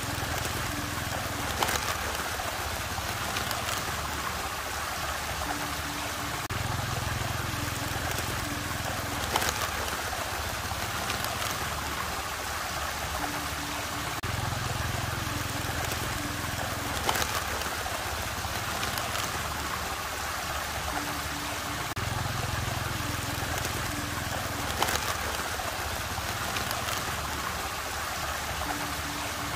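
Steady rushing water, with a low rumble that comes and goes and a faint click, all in a pattern that repeats about every eight seconds like a looped recording.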